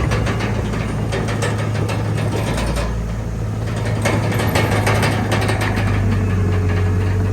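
Diesel engine of a Komatsu D31PX crawler bulldozer running steadily under a deep hum, with repeated metallic clanking and rattling.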